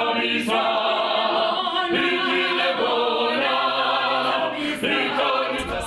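Small mixed choir of bass, tenor and soprano voices singing together in harmony, breaking off shortly before the end.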